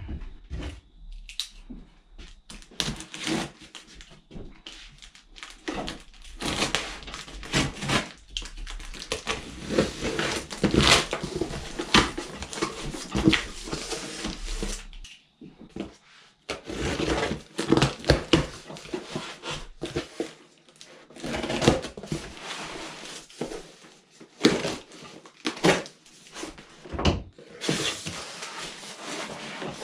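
Cardboard box and packaging being opened and handled: irregular crinkling, scraping and knocking with short clicks and thumps, pausing briefly about halfway.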